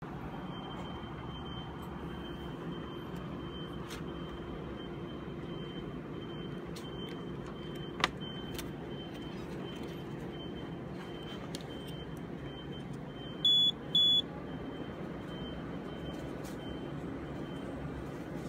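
Steady hum of bench test instruments' cooling fans, with a single sharp click about eight seconds in and two short electronic beeps in quick succession a little past the middle.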